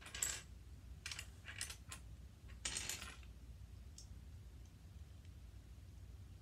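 Small plastic LEGO pieces clicking and clattering as they are handled, in about four short bursts over the first three seconds, then one faint click.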